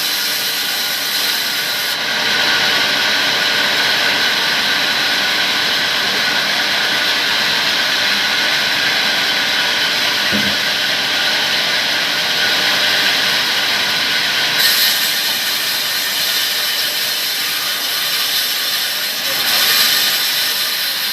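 Power saw cutting through palmyra palm wood: a loud, steady rasping noise that grows louder about two seconds in.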